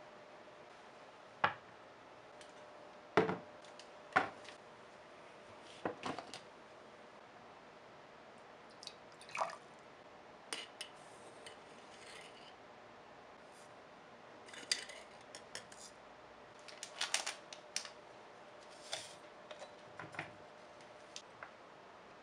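Making instant coffee by hand: a metal spoon scooping instant coffee granules from a glass jar, with scattered sharp clicks, clinks and short scrapes of spoon against glass.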